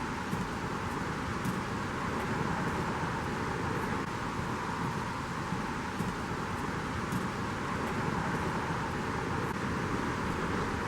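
Steady rush of water falling at a partly frozen waterfall, an even noise with no breaks.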